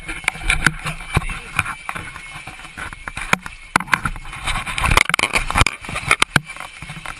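Phone microphone being jostled and rubbed in the hand, giving many sharp knocks and rustles over rushing noise, with voices of people around it.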